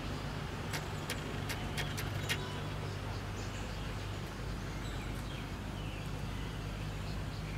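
Steady low mechanical hum, with a few sharp clicks between about one and two and a half seconds in.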